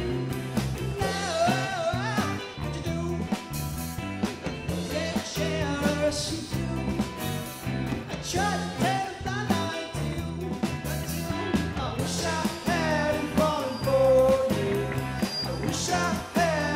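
Live rock band playing a song: electric guitars including a Fender, acoustic guitar, bass and a drum kit, with a melody line bending over the top.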